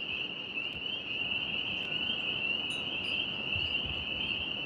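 Steady high-pitched chorus of crickets chirring without a break, with low rumbles of wind on the microphone.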